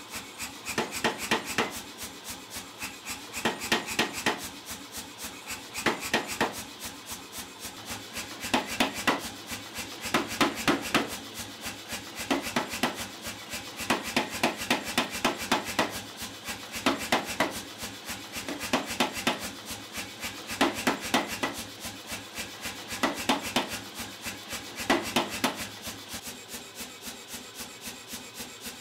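Power hammer striking a hot steel bar with rapid, evenly spaced blows. Louder runs come every couple of seconds as the bar's corners are knocked off to forge it into an octagon.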